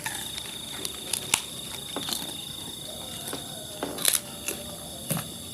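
Several short, sharp clicks and light taps, typical of tableware during a meal, with the loudest about four seconds in. A steady high-pitched whine runs underneath.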